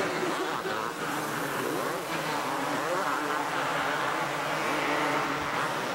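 Two-stroke supercross motorcycle engines revving up and down on the track over a steady crowd-like background haze.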